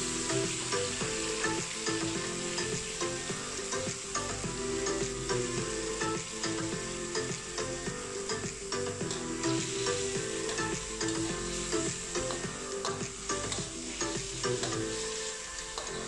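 Beef sizzling in an aluminium wok with a little water just added, while a metal spatula stirs it and knocks and scrapes against the pan in frequent small clicks.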